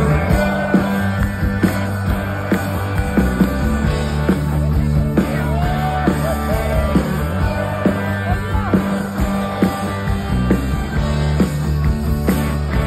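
Live rock band playing through a concert PA: drums keep a steady beat under sustained bass and guitar chords, with a lead line bending in pitch midway.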